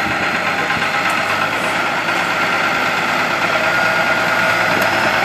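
Farm tractor's engine running steadily at idle close by.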